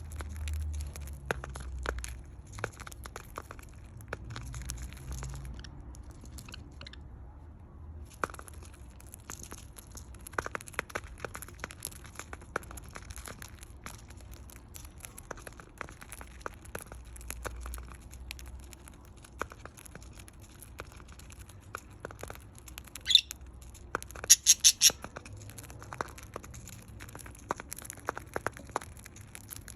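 Budgerigars cracking and chewing seed: many small irregular clicks and crunches. About three quarters of the way through come a few loud, sharp squawking chirps.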